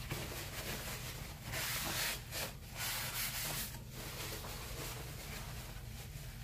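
A run of rubbing, scraping strokes across a surface, bunched from about a second and a half in to nearly four seconds in, over a steady low hum.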